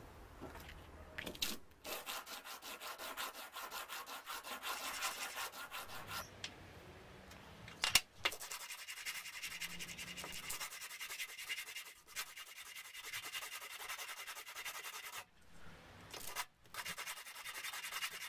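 A short steel bar is rubbed back and forth on abrasive paper laid flat on a steel bench top. It makes a fast, hissing scrape in rapid strokes as the bar's face is dressed flat. The rubbing pauses briefly a few times, and there is a single sharp clack about eight seconds in.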